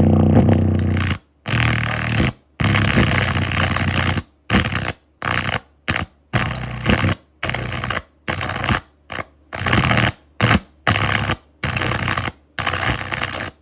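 Car speakers overdriven by a 300 W amplifier: a loud, steady low bass tone, then harsh distorted crackling that cuts out to silence and back in about a dozen times.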